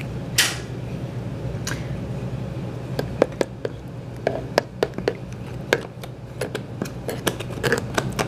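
A metal spoon stirring chicken bouillon into water in a plastic bowl, clicking against the bowl in quick, uneven taps from about three seconds in, with a brief rush of noise near the start.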